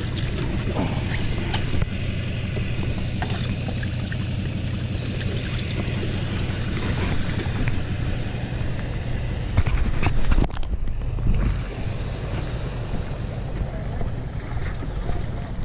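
Footsteps and clothing rustle of a person walking with a body-worn camera, over a steady low rumble, with a couple of loud knocks about ten seconds in; faint voices in the background.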